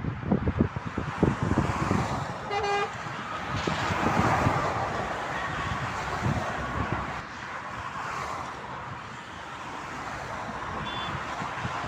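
Motorway traffic passing close by, with low rumbling early on and a swell of passing-vehicle noise around four seconds in. A single short car horn toot sounds about two and a half seconds in.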